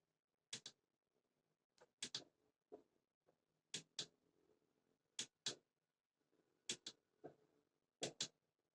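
Click-type 1/4-inch torque wrench (2.5–30 Nm) clicking repeatedly, mostly in close pairs of sharp clicks about every second and a half: the wrench's release mechanism breaking over at its set torque.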